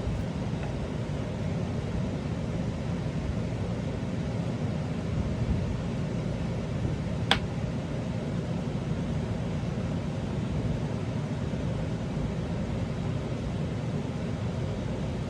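Steady low background rumble, like a fan or air-conditioning unit running, with one sharp click about seven seconds in.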